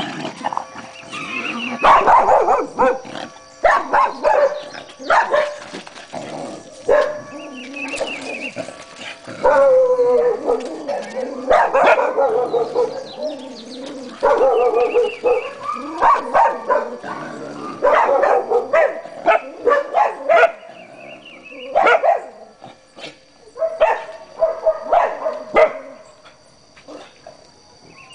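A dog barking in repeated clusters of barks with short pauses between, dying down near the end.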